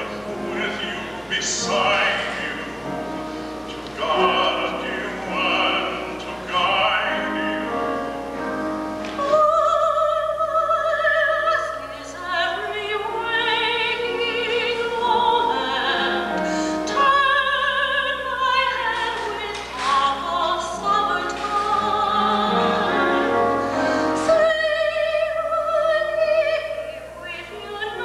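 A man and a woman singing a duet in a trained, operatic style with wide vibrato; a lower voice leads for the first several seconds, then a woman's voice takes over from about ten seconds in.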